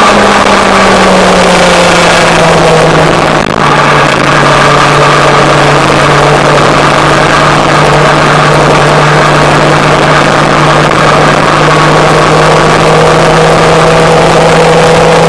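Motorcycle engine running at a steady road cruise, its pitch easing down a little over the first couple of seconds and then holding. Wind rushes over the bike-mounted microphone.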